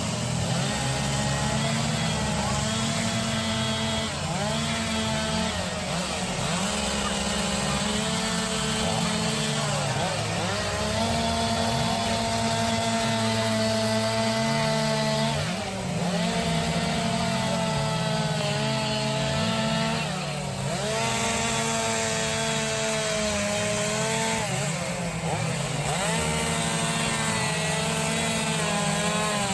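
Two-stroke chainsaw running as it carves wood, the engine pitch sagging under load and climbing again every few seconds. It briefly eases off twice in the second half.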